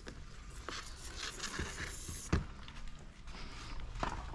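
Faint handling noise of wet clear paint protection film being pulled and worked on a car mirror: scattered small crackles and clicks, with one sharper tap about two and a half seconds in.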